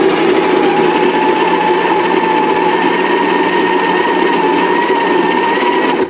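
Breville Smart Grinder's conical burr grinder motor running, grinding coffee into a portafilter. It is a steady whine over a grinding hiss, its pitch creeping up slightly, and it cuts off at the very end.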